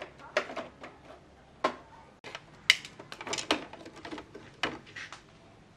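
Irregular knocks and clinks of hard objects being handled and set down, a dozen or so at uneven spacing, the loudest a short ringing metallic clink a little before the middle.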